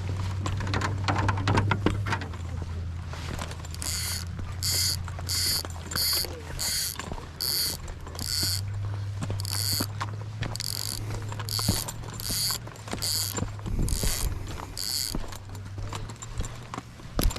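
Fishing reel being cranked to retrieve line: a regular whirring click about one and a half times a second, starting a few seconds in and stopping near the end, over a steady low hum.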